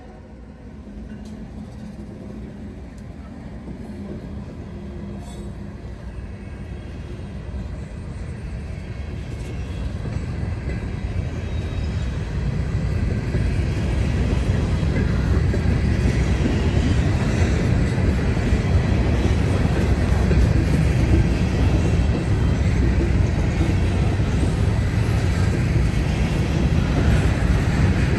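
Norfolk Southern freight train approaching and passing, a rail rumble and wheel noise that builds over the first dozen seconds and then holds steady as the cars roll by.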